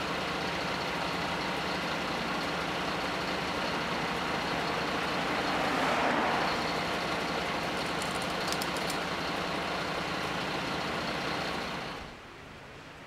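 Steady engine noise with a swell about halfway through, dropping off sharply near the end.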